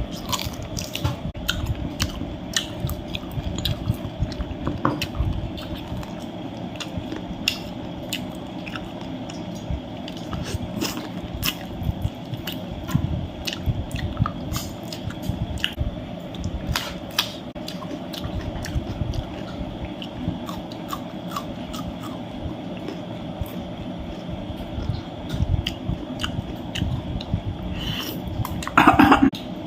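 A person eating chicken curry and salad close to the microphone: steady wet chewing with many small clicks and crunchy bites. Near the end comes one short, louder burst.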